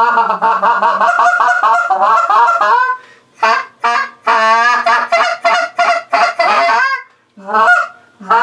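C&S Legger Apostle short reed goose call, acrylic insert, blown in a calling sequence of goose honks and clucks. Fast strings of short notes, broken by pauses about three seconds in and about seven seconds in, then a couple of single honks near the end.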